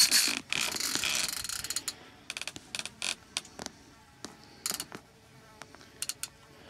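Baitcasting reel ratcheting under load while a hooked stingray is played on a heavily bent rod. A dense run of clicking fills the first second or so, then it comes in short spurts.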